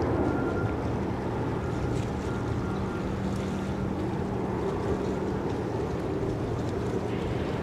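Distant jet engines rumbling across open water as an airliner rolls out on the runway after landing, slowly fading, with wind noise on the microphone.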